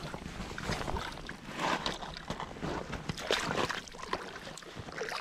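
Light, irregular splashing and sloshing of lake water at a rocky shoreline, starting as a small bass hits the surface on its release.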